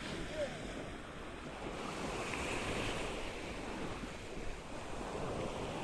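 Sea surf washing up a sandy beach, a steady hiss of waves that swells about two seconds in, with wind on the microphone.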